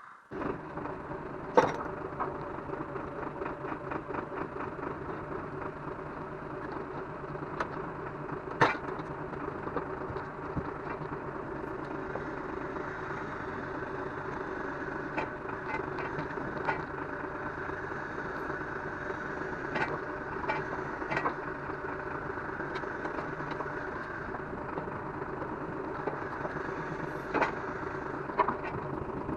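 An engine starts up just after the beginning and runs steadily, with a few sharp metallic knocks on top, the loudest about a second and a half in, another near nine seconds and one near the end.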